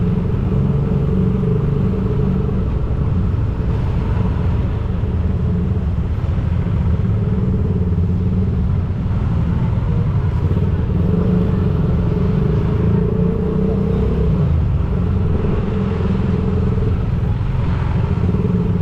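Vehicle driving through street traffic: a steady low engine and road rumble, with a humming tone that fades in and out.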